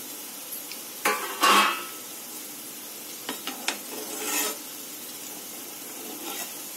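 Vegetable Manchurian balls deep-frying in hot oil in a nonstick kadai, a steady sizzle. A perforated metal skimmer scrapes and clinks in the pan about a second in, and again more lightly around three to four seconds in, as the balls are turned and lifted out.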